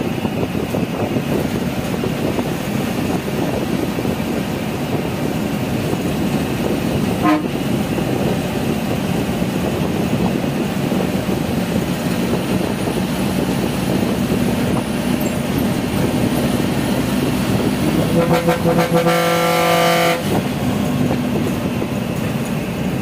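Steady engine and road noise inside a moving bus, heard from beside the driver's seat. A horn sounds for about two seconds near the end.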